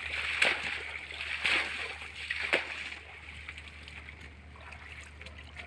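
Footsteps wading through shallow muddy water: three loud splashing steps about a second apart, then quieter sloshing from about three seconds in.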